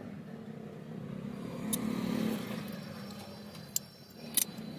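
A motor vehicle running and passing by, swelling to its loudest about two seconds in and then fading. A few short sharp clicks come over it.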